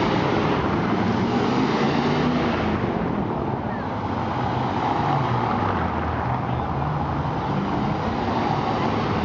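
Several Audi cars driving slowly past one after another over cobblestones, their engines running at low revs with tyre noise on the cobbles.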